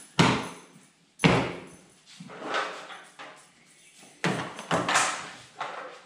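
Hollow plastic clunks and knocks as the DeWalt wet/dry vacuum's plastic tank and powerhead are handled: two sharp knocks near the start, a softer one in the middle, then a quick cluster near the end.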